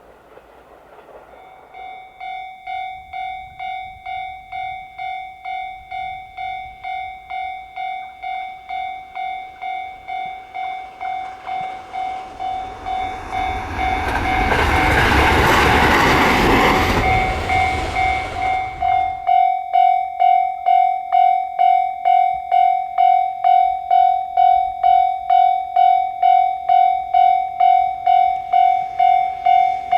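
Japanese level-crossing warning bell ringing a steady, repeated electronic ding about every two-thirds of a second. A train rushes past from about 13 to 19 seconds in, drowning it out, and the bell rings on, louder, afterwards.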